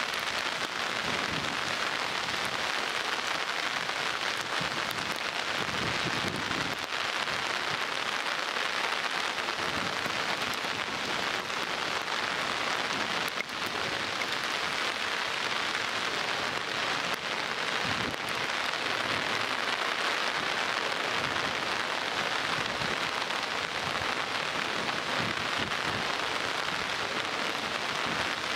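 Heavy downpour: rain falling with a steady, even hiss.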